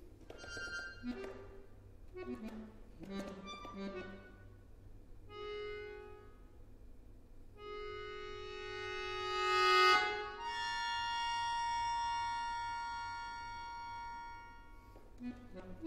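Solo accordion playing contemporary music: short scattered notes, then held chords that swell to a loud peak a little past halfway. A high chord is then held and slowly fades.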